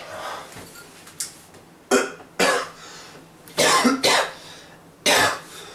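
A man coughing hard in fits: about five harsh coughs, mostly in pairs about half a second apart.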